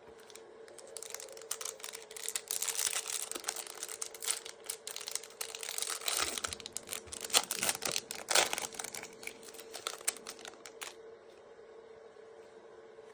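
Foil trading-card pack wrapper being crinkled and torn open, a rustling crackle with sharp crinkles that dies down near the end. A faint steady hum lies underneath.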